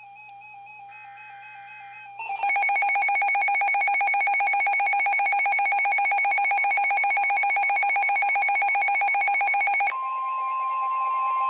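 Emergency alert signalling from a NOAA Weather Radio broadcast. Faint SAME header data bursts sound in the first two seconds, then a loud, rapidly pulsing electronic alarm tone begins about two seconds in. About ten seconds in, the pulsing gives way to the steady 1050 Hz warning alarm tone that announces a new warning.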